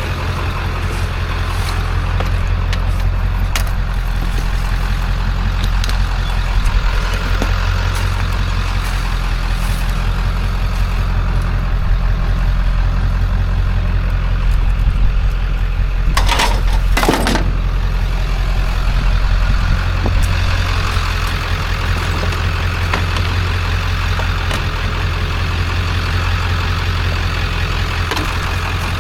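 Truck engine running steadily with a low hum, broken a little past halfway by two brief sharp sounds.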